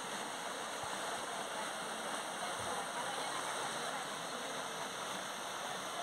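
Steady rush of water from a small waterfall spilling over boulders into a river pool, with faint distant voices now and then.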